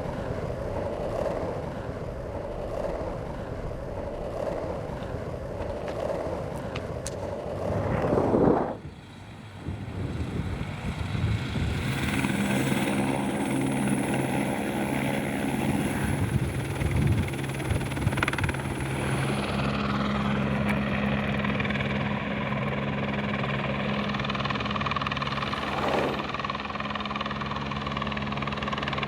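Engine running steadily under wind and outdoor noise. The sound breaks off abruptly about nine seconds in, then a steady engine hum holds to the end.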